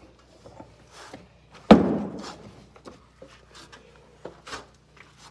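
A single loud, sudden thump about two seconds in, dying away over about half a second, among scattered softer knocks and scuffs.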